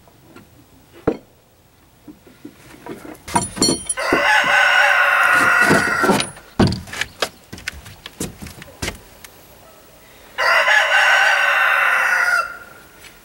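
A rooster crowing twice, each crow lasting about two seconds, with scattered light knocks in between.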